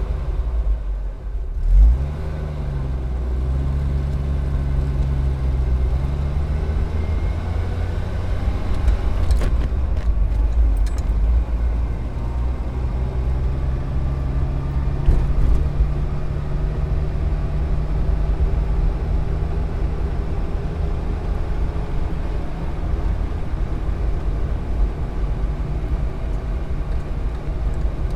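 Car engine and road rumble, a steady low drone. The engine's pitch dips and rises a couple of seconds in, then holds level. A thump near the start and a few light clicks around ten seconds in.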